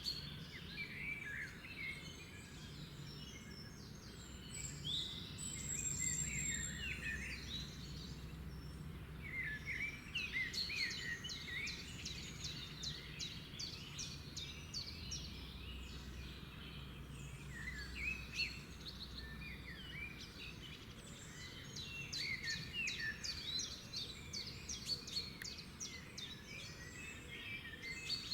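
Several songbirds singing and chirping together, a busy chorus of short chirps, quick trills and rapid ticking notes, over a steady low background rumble.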